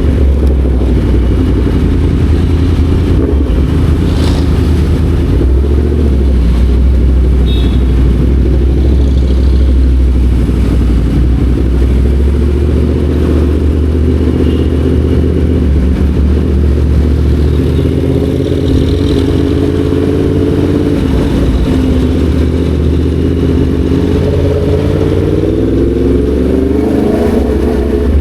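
Yamaha MT-10 SP's crossplane inline-four engine running under way, with the revs climbing in the last few seconds.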